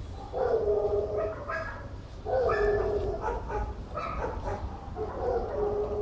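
Cats meowing: several drawn-out meows, each about half a second to a second long.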